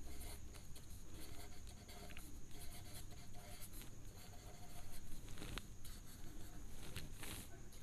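A pen writing on paper: faint, irregular scratching strokes as a word is written out by hand.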